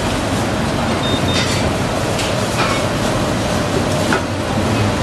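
Busy indoor wet-market din: a loud, steady rushing noise with a faint hum under it, and several scattered knocks and clatters.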